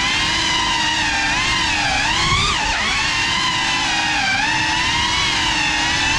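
FPV drone's electric motors and propellers whining, the pitch wavering up and down with the throttle, with a quick dip and rise about two and a half seconds in.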